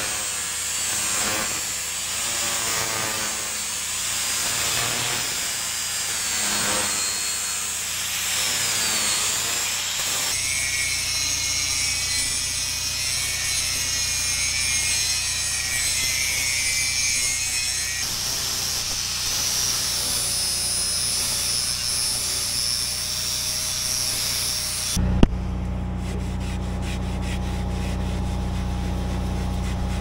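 Angle grinder running against the steel of a backhoe boom, cleaning off rust and paint down to bare metal before welding. Its whine wavers with the pressure for about ten seconds, then holds steadier. About 25 seconds in it stops with a click, leaving a steady low hum.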